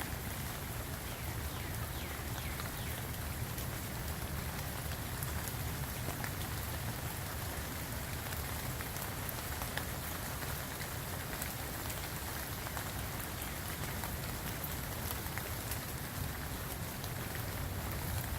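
Steady rain falling, with many separate drop hits over an even hiss and a low rumble.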